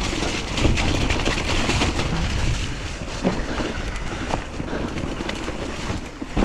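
Hardtail mountain bike descending a muddy forest trail at speed: wind buffeting the microphone over the hiss of tyres on dirt, with scattered knocks and rattles from the bike over bumps.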